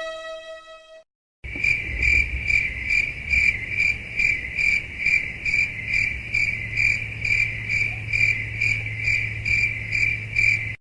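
Crickets chirping in a steady, even rhythm of about two chirps a second over a faint low hum, as a canned night-ambience sound effect. It starts about a second and a half in and cuts off suddenly at the end.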